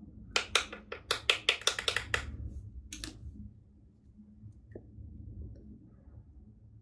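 Sharp clicks and taps of a pointed tool and a plastic eyeshadow palette as the pressed eyeshadow is picked out: about a dozen quick clicks over two seconds, one more a second later, then faint handling.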